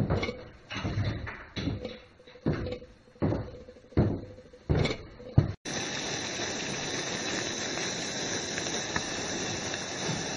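A few separate knocks and rustles of gear being handled. Then, from an abrupt cut about five and a half seconds in, the steady hiss of a portable camping stove burner running under a pot.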